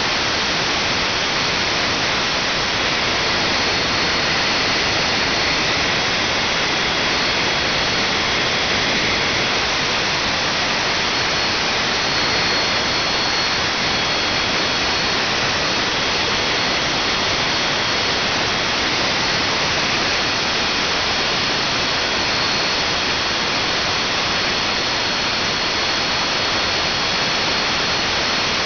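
Small gas turbine engine running steadily on a test rig: an even, loud rush of air and combustion noise with faint high whistles held throughout.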